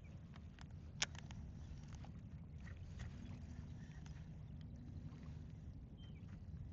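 Steady low rumble of a small fishing boat moving through shallow water, with a sharp click about a second in.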